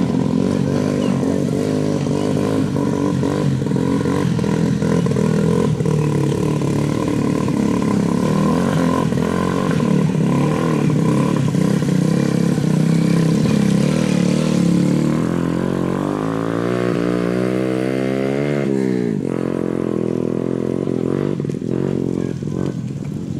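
Small motorcycle engines labouring loudly at high revs as the bikes struggle through deep mud. About sixteen seconds in, one engine's pitch climbs steadily for a few seconds, then drops off suddenly, and a lower, steadier engine sound carries on.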